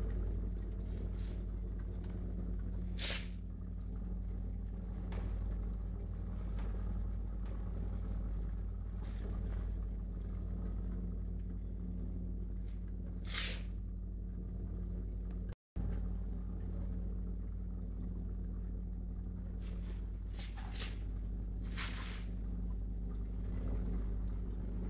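Steady low electrical hum of aquarium equipment running, with a few brief high swishes scattered through it. The sound drops out for an instant just past halfway.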